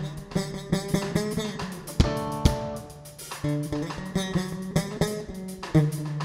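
Jazz and world-music band playing live: electric bass and a picked electric guitar, with a few sharp drum hits about two seconds in.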